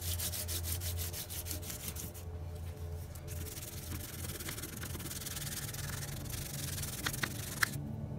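A white Crayola wax crayon rubbed back and forth over cardstock laid on a raised embossing folder, making a dry, scratchy rubbing in quick strokes. The rubbing pauses briefly about two seconds in and then resumes. A couple of light clicks come near the end, as the rubbing stops.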